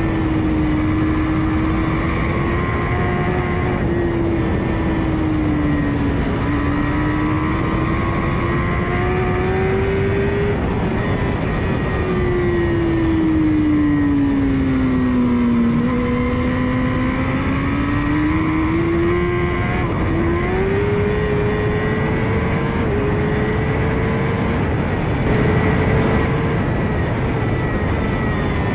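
Kawasaki ZX-10R inline-four engine at racing speed, heard from an onboard camera with heavy wind rush. The engine note rises and falls with the throttle, sinks to its lowest pitch around the middle, then climbs back in steps, as through upshifts, near the end.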